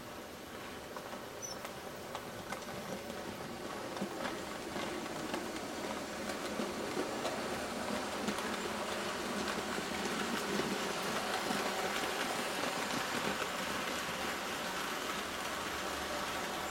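OO gauge model steam locomotive and passenger coaches running along the track, the wheels rattling and clicking over the rail joints. It grows louder over the first ten seconds or so as the train comes past, then holds steady.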